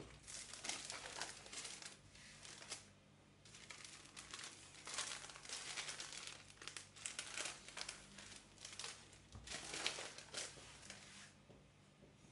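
Hands sweeping and rubbing flour across a wooden tabletop: soft, dry brushing rustles in two long stretches, with a short pause about three and a half seconds in.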